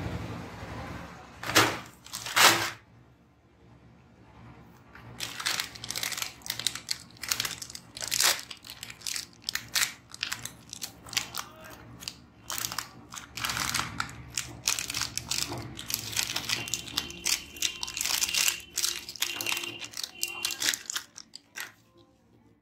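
Small plastic candy packets crinkling and tearing as they are handled and ripped open by hand, with a dense run of sharp, irregular crackles. Two louder sharp crackles stand out about two seconds in.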